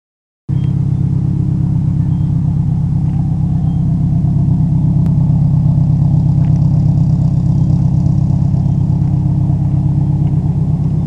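Subaru Impreza WRX STi Spec C's turbocharged flat-four idling steadily, a deep even exhaust rumble heard from near the rear of the car.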